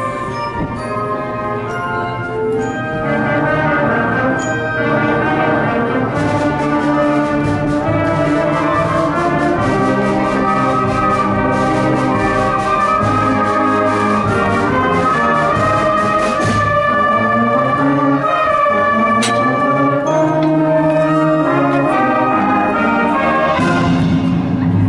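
A live concert band, led by its brass, playing a slow piece of held chords, with a few drum or cymbal strokes along the way.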